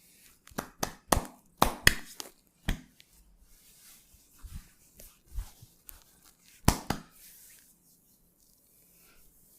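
Hands striking skin in a percussive massage: a quick, irregular run of sharp slaps and chops in the first few seconds, softer pats after, and one loud slap about two-thirds of the way through.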